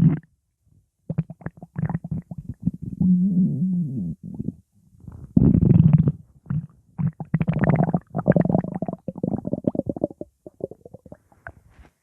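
Stomach growling: irregular bursts of gurgling rumbles, with a short pause about half a second in and the loudest burst around five to six seconds in, thinning out near the end.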